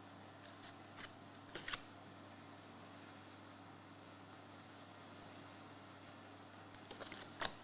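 Faint handling noises on a table: a few light clicks and scrapes, the loudest near the end, over a low steady room hum.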